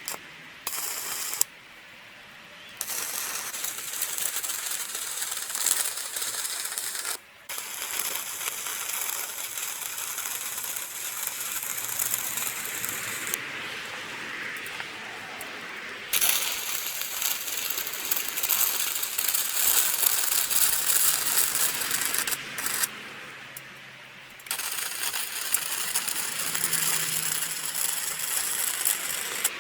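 Steel being worked in a workshop: loud, harsh crackling hiss in a series of passages, each cutting off abruptly.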